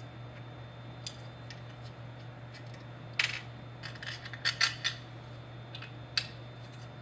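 Small metal parts being handled: scattered light clicks and clinks as threaded studs are fitted into a throttle plate. The loudest click comes about three seconds in, a quick cluster follows between four and five seconds, and one sharp click comes near the end.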